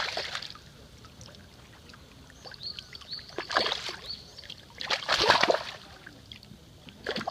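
Splashing in pond water in a few short bursts, the loudest about five seconds in, over a small bird chirping again and again.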